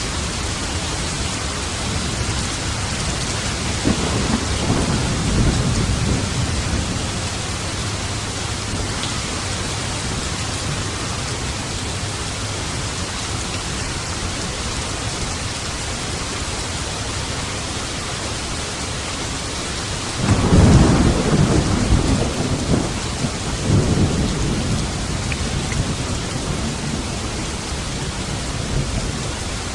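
Steady heavy rain. Thunder rumbles twice: a softer roll about four seconds in and a louder, sharper rumble about two-thirds of the way through that fades over several seconds.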